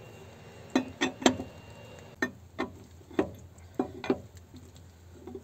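Steel socket wrench clinking against a wheel nut and hub as it is fitted onto the nut, about eight sharp metallic knocks at irregular intervals, the first three close together about a second in.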